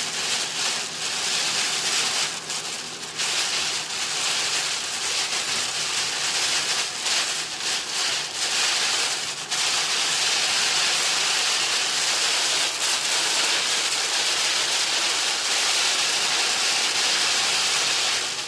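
Heavy rain pouring onto the windshield and roof, heard from inside a car's cabin, with the tyres running through water on the road. About ten seconds in the downpour becomes a steady, louder noise.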